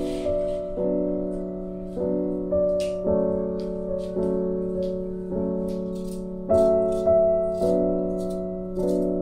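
Background piano music: soft chords struck about once a second and left to ring.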